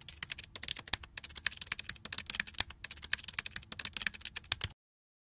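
Typing sound effect: a rapid, irregular run of key clicks for about five seconds as on-screen text types itself out.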